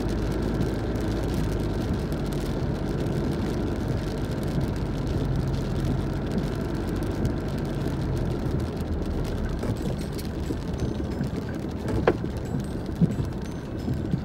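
Car engine and tyre noise heard from inside the cabin while driving on a wet road, a steady hum that fades about two-thirds of the way through. A few sharp clicks near the end.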